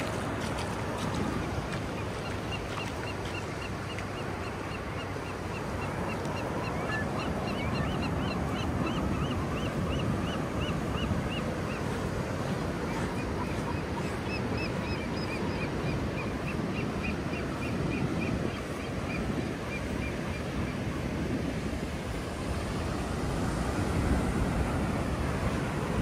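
Ocean surf washing onto a rocky sand beach. Over it a bird gives two long runs of short, high chirps, about three a second.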